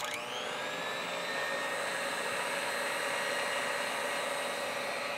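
Stand mixer motor switched on, spinning up with a brief rising whine and then running steadily. It is driving a pasta cutter attachment as a sheet of fresh pasta dough is fed through.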